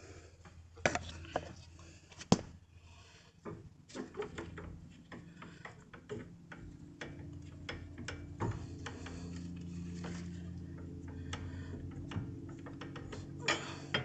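Scattered light metal clicks and clinks as a 2016 Toyota Prius front brake caliper is handled and fitted back over new pads and rotor, with one sharper knock a little over two seconds in.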